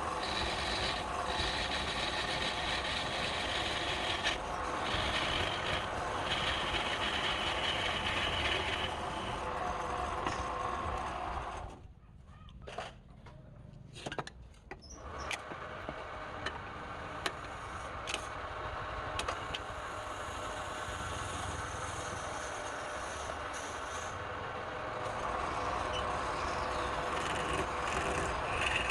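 Wood lathe running while a turning tool scrapes and cuts the spinning wood. The cutting sound falls away for a few seconds about halfway through, then picks up again.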